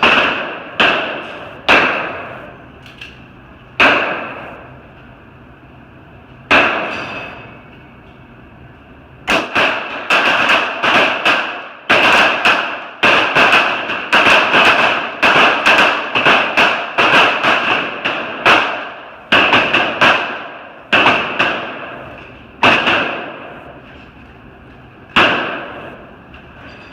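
.22 calibre pistol shots, each followed by a short echo: a few spaced single shots, a pause of a couple of seconds, then a fast string of about two shots a second for some twelve seconds, then a few more single shots near the end.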